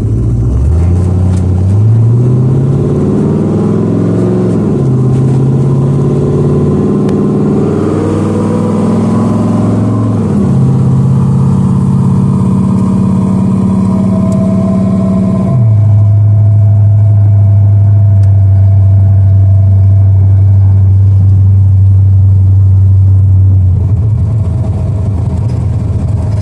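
Car engine pulling the car through the gears of a 4R70W automatic transmission under a Quick 4 electronic controller. The revs climb and drop sharply at each of three upshifts, then the engine settles into a steady cruise.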